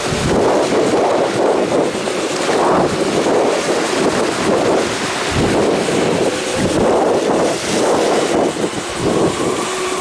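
Wind buffeting the microphone, over the wash of ocean waves.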